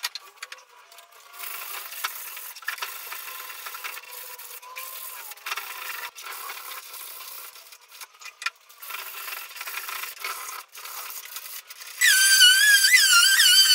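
Dry, scratchy rubbing and brushing on a bare wooden cabinet door panel, uneven, with a few sharp knocks. About twelve seconds in, louder music with a whistled melody starts and covers it.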